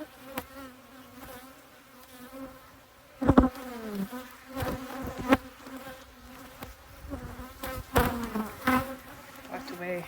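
Defensive honeybees buzzing close by, single bees whining past with a pitch that rises and falls. Two sharp knocks cut through, the loudest about three seconds in and another about eight seconds in.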